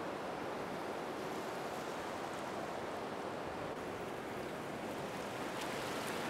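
Steady rushing, bubbling water noise from an aerated aquarium tank, with a few faint ticks near the end.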